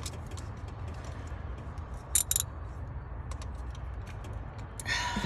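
Scattered small metallic clicks and clinks of a socket wrench on an extension being worked to loosen a spark plug, with a louder pair of clicks about two seconds in and a short rustle near the end.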